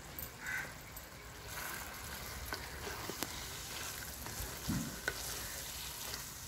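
Chicken, sweet corn and vegetable stuffing sautéing in oil in a clay kadai, sizzling faintly while a spatula stirs it, with scattered small scrapes and clicks of the spatula against the pot.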